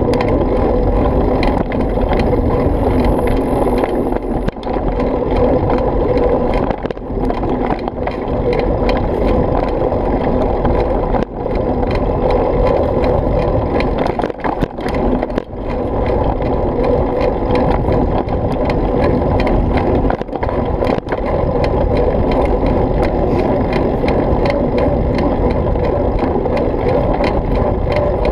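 Riding fast along a rough dirt trail: a continuous loud rumble of the ride with constant clattering and rattling as the machine jolts over the ground, briefly dipping a few times.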